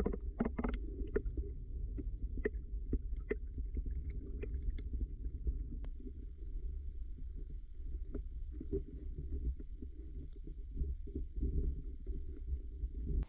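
Muffled underwater sound picked up by a submerged camera: a steady low rumble of water, with scattered sharp clicks and ticks. It cuts off abruptly at the end.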